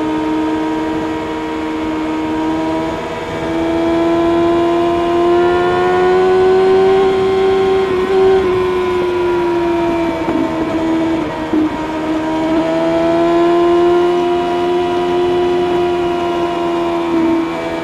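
Kawasaki ZX-6R's inline-four engine through an Akrapovic exhaust, running at high revs under way. Its pitch climbs gently, dips briefly about ten seconds in, rises again and eases off near the end.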